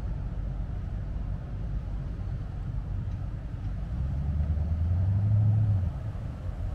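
Steady low rumble with an engine hum that rises about four seconds in, swells, and cuts off about two seconds later.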